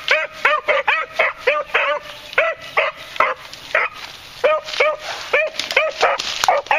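Beagle baying in short, repeated yelping calls, about two to three a second with a few brief pauses: the hunting cry of a beagle giving tongue on a rabbit's scent.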